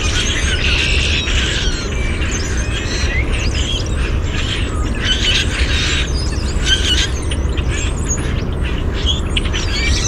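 Mixed flock of red-winged blackbirds, common grackles and brown-headed cowbirds calling together: a dense chorus of many overlapping squeaky calls and whistles, over a steady low rumble.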